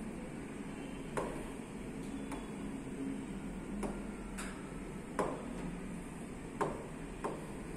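Stylus tapping and knocking against the glass touchscreen of a Boxlight interactive flat panel as menus are selected and lines drawn: several sharp, irregular taps over a steady background hum.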